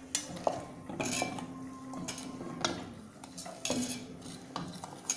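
A steel spoon stirring a thin ragi flour batter in a stainless steel bowl, mixing it smooth without lumps. It scrapes and clinks against the bowl's sides at irregular moments, about once a second, and the bowl rings faintly after some of the strikes.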